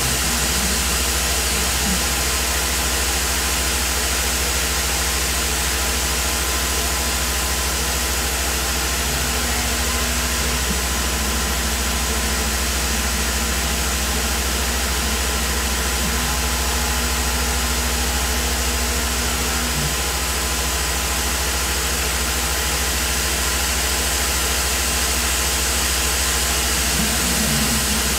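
Tormach PCNC 1100 CNC mill running, its end mill cutting a 4140 steel part on the 4th axis. A steady loud hiss from the mist coolant nozzles sits over a low hum from the machine, with a low tone that comes and goes.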